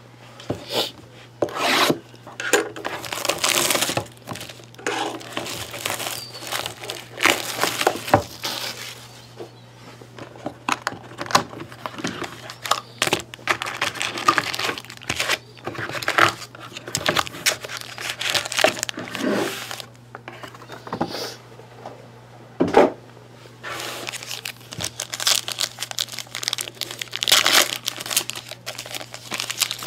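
A sealed cardboard box of trading cards is torn open and its foil card packs handled and ripped open: repeated irregular tearing, crinkling and rustling of foil wrappers and cardboard.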